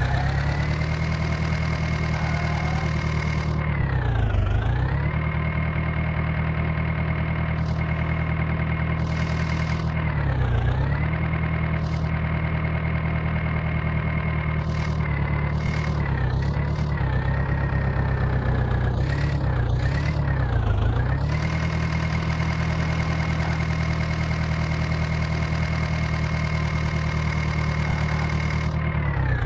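Heavy diesel engine running steadily at raised revs, its pitch sagging briefly and recovering several times as load comes on, most often around the middle, typical of a machine working while loading soil.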